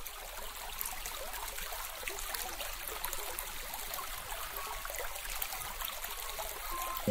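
Aquarium water trickling with a steady fizz of many tiny crackles, heard from inside the tank.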